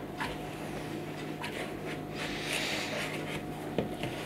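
Hands squeezing and kneading instant-mash potato dough in a plastic mixing bowl: soft rubbing and squishing, with a couple of small knocks near the end.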